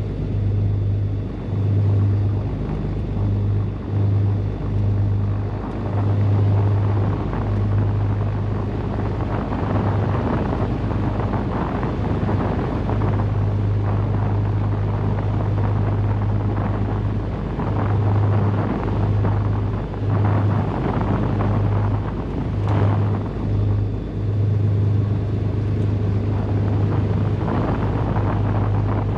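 Beechcraft G58 Baron's twin piston engines and propellers running at taxi power: a steady low drone with engine noise above it.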